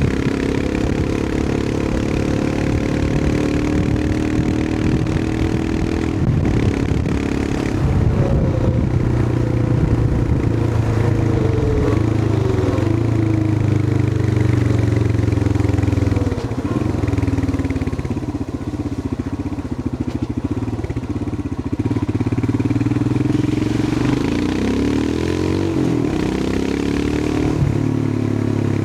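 Royal Enfield Himalayan 411's single-cylinder engine pulling the bike along, its note rising and falling with the throttle and gear changes. The revs drop and ease off about two-thirds of the way through, then climb again near the end.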